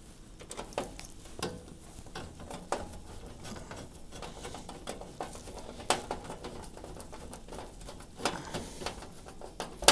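Scattered light clicks and taps of small metal parts being handled while screws are worked and a metal trim is fitted to a range cooker, with a sharp click just before the end.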